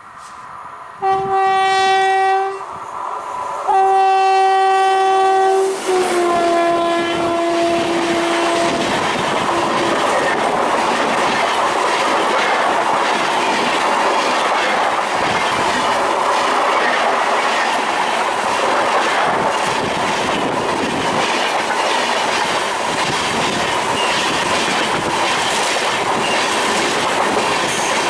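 Kamrup Express passing at speed. The locomotive horn sounds two long blasts, and a third drops in pitch as the engine goes by. The steady rush of the coaches running past over the rails follows.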